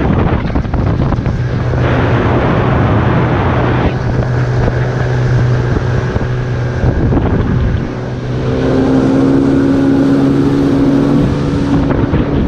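Outboard motor driving a small boat at speed, with wind buffeting the microphone. About eight seconds in, the engine's hum shifts to a higher, clearer note.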